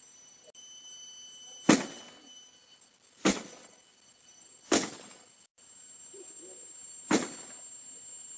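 Four sharp blows, a second and a half to two and a half seconds apart, each with a short ringing tail: vandals striking a truck and damaging its headlights.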